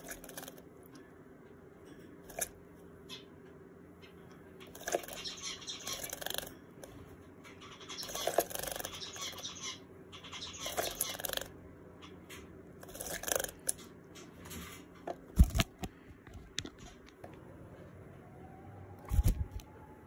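A Java sparrow bathing in a small plastic bird bath, flapping and dipping in the water in several short bursts of splashing. Two sharp knocks come near the end.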